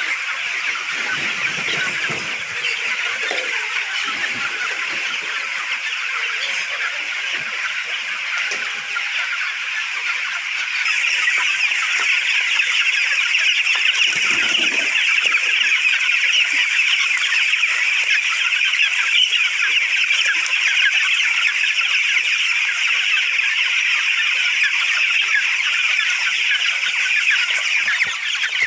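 A large flock of broiler chickens clucking and chattering together in a continuous din, getting louder about eleven seconds in.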